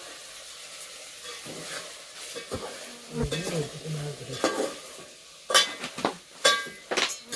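Food sizzling in a pan while a metal spoon stirs and scrapes it, followed by several sharp metal clanks against the pan near the end.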